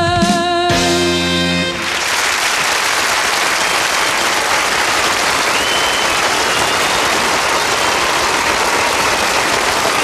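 The song's last held note, over the band's final chord, ends about two seconds in. A studio audience then applauds steadily.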